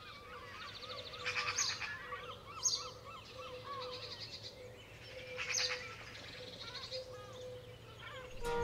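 Small birds calling and twittering, with several short, fast high trills, over a faint steady low hum.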